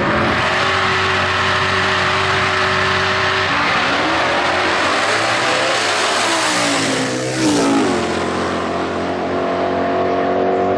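Twin-turbo Holden Commodore drag car running at full throttle down the drag strip. Its engine pitch drops sharply as it passes about seven seconds in.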